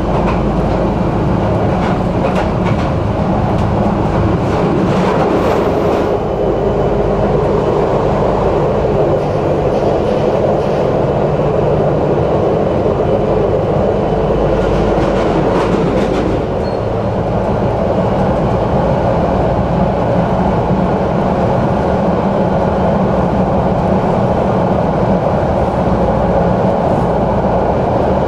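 Tram running steadily along its track, heard from inside the car: a continuous loud wheel-and-rail rumble, with clusters of clicks and clatter over the track in the first few seconds and again around the middle.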